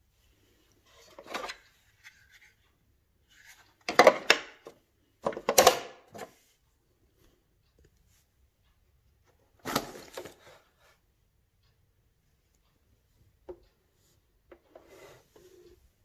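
Hard plastic parts of an AEG Öko Vampyr canister vacuum cleaner being handled: the opened lid, its tool tray and the housing clatter, knock and rub in several short bursts, loudest about four to six seconds in, with a single sharp click near the end.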